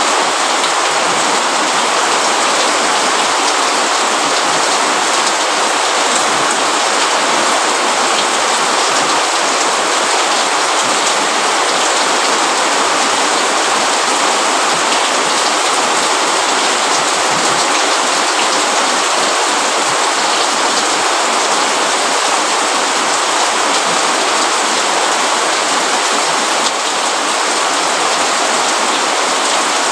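Steady rain falling on a hard surface: an even, unbroken hiss of many drops that holds at the same loudness throughout.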